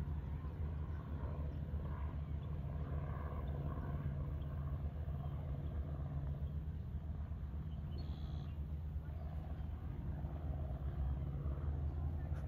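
A steady low mechanical hum, like a motor running, with faint indistinct sounds above it.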